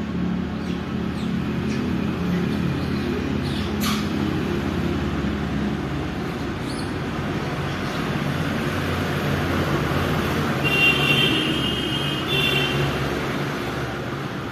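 Road traffic with a motor vehicle engine running steadily, its hum strongest in the first half. A sharp click comes about four seconds in, and two short high-pitched tones sound near the end.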